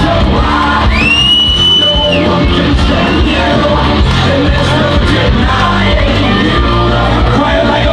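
Loud rock music with singing, over a crowd yelling and shouting. About a second in, a shrill high yell is held for about a second.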